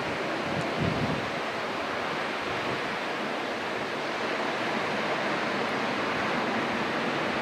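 Ocean surf washing steadily, with wind blowing on the microphone and a brief gust about a second in.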